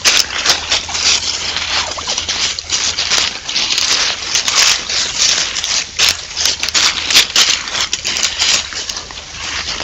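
Wild turkeys walking and scratching through dry fallen leaves: a dense, continuous crunching rustle with many sharp crackles, easing a little near the end.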